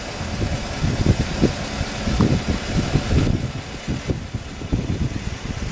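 Wind buffeting the microphone: a low, uneven rumble that comes in irregular gusts.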